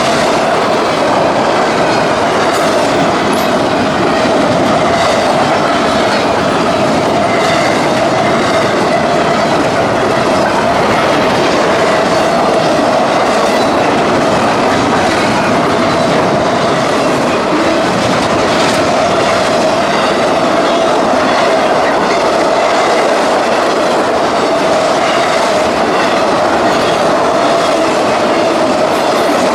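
Cars of a long CSX intermodal freight train rolling past: a steady, loud rumble of steel wheels on rail with clickety-clack over the joints and a steady ringing squeal from the wheels.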